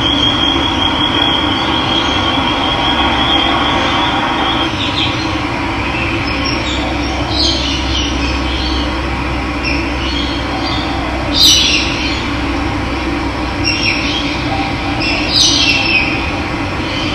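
Steady rush of running water, with a thin high trill in the first few seconds and several short bird calls later, the loudest near the middle.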